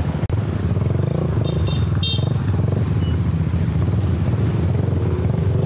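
Motorcycle engine running at low speed, heard up close from the rider's own bike, with a steady rapid low pulsing.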